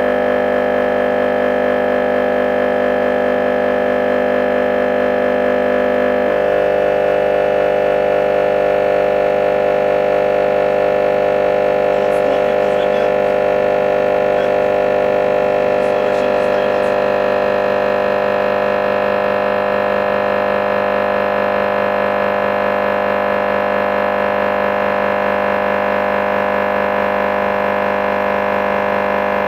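10-inch car subwoofer driven with a steady test signal at about twice its rated RMS power, around 1,240 watts, in an overload crash test. It gives a loud, unbroken tone with many overtones, and the tone shifts slightly about six seconds in.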